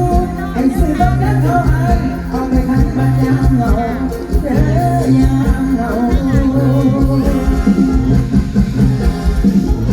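Thai mor lam music played live, with a singing voice over a band and a steady, pulsing bass line.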